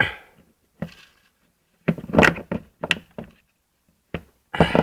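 A run of sharp clicks and knocks from handling the engine block heater's plug and cord, with louder clusters about two seconds in and near the end.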